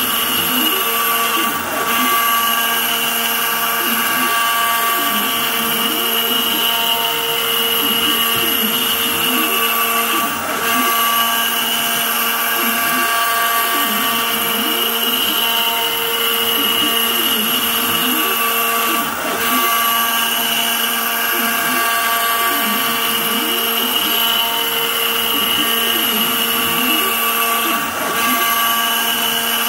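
CNC router spindle whining steadily as its end mill cuts a curved bottle-opener outline in wood. Lower tones from the machine slide up and down as it moves along the curves, and the cutting noise dips briefly about every nine seconds.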